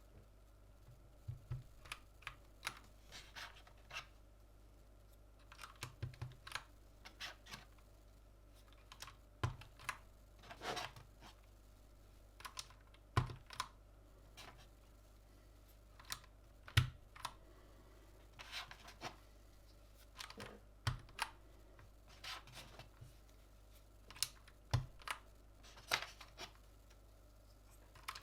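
Keystrokes on a Gamakay LK67 mechanical keyboard with Gateron red linear switches: scattered, irregular key presses, a few louder clacks among softer ones.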